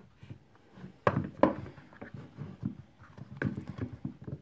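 Plastic air filter housing and its lid knocked and shifted about by gloved hands: a few sharp knocks, the loudest about a second in, between lighter rustling and clatter.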